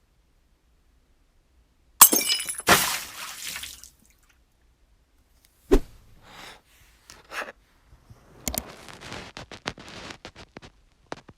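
A sudden loud crash with a high ringing tail, like glass breaking, hitting twice about two seconds in, followed by scattered smaller clinks and a rapid run of little clicks like falling fragments.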